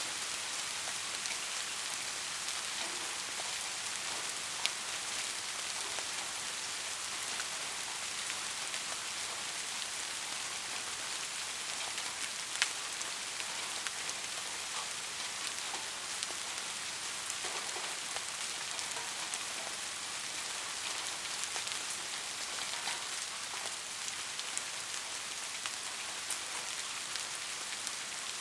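Heavy rain falling steadily as an even hiss, with scattered sharper drop hits; two louder single hits stand out about 5 and 13 seconds in.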